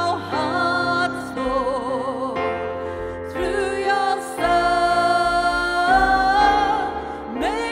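Two voices singing a slow worship song, holding long notes with vibrato, over sustained chords on a Roland electric keyboard.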